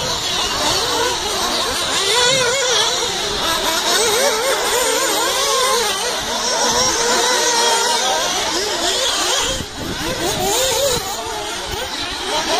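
Several 1/8-scale nitro RC buggy engines racing together, their high-pitched whine rising and falling over and over as they rev up and back off.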